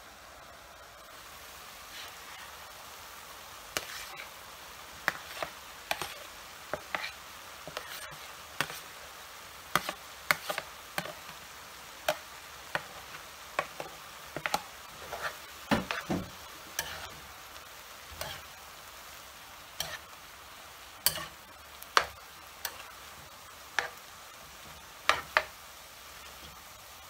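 Stir-fry of prawns, chicken, vegetables and noodles sizzling in a frying pan, with irregular clinks and scrapes of a utensil against the pan, roughly one a second, as the noodles are stirred and tossed through.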